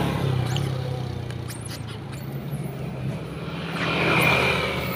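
Motor vehicle engine running steadily, swelling louder about four seconds in as a vehicle passes.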